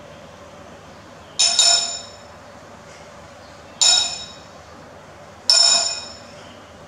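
Metal spoon clinking against ceramic dishes three times, about two seconds apart; the first is a quick double strike, and each rings briefly.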